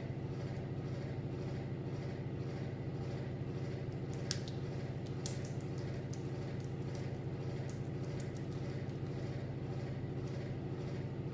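Steady low hum, with a few faint soft clicks from fingertips massaging serum into wet facial skin, mostly about halfway through.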